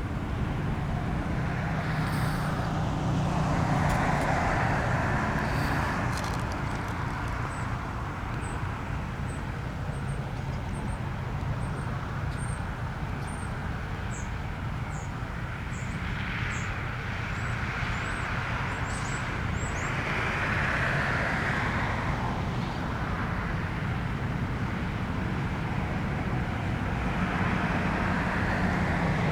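Road traffic: several cars pass one after another over a steady low rumble, each swelling and fading over a few seconds. Short faint high chirps sound through the middle.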